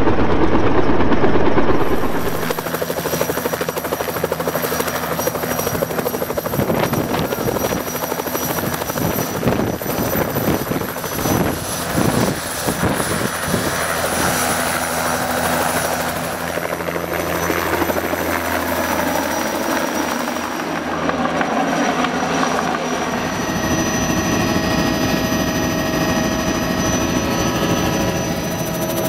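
Helicopter engine and rotor running steadily. Near the end it is heard from inside the cabin in flight.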